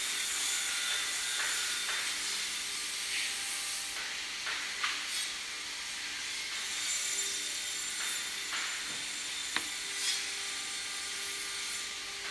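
A 21-spindle hydraulic vertical multi-boring machine for wood panels running, with a steady hiss from its drill spindles working. A few sharp clicks come about halfway through and again later on.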